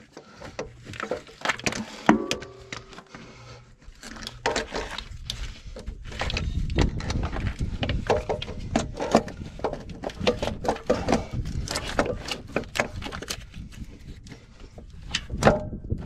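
Repeated metallic clunks, knocks and scrapes as a heavy electric starter motor is worked up into place against the engine's flywheel housing, with wires and harness rattling around it.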